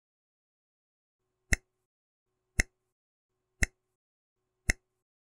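Countdown timer sound effect: four sharp ticks about one second apart, beginning about a second and a half in.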